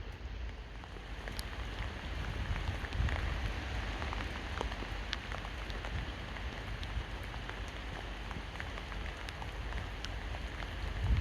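Steady rain falling, with scattered single drops ticking sharply over an even hiss and a low rumble underneath.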